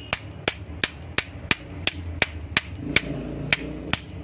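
Hammer tapping a new 6201 ball bearing onto an exhaust-fan motor shaft, sharp metal blows at an even pace of about three a second.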